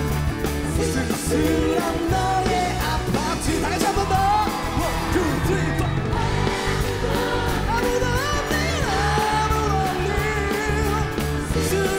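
Live band music with a lead singer: a pop-rock song played on stage, vocals gliding over a steady drum beat.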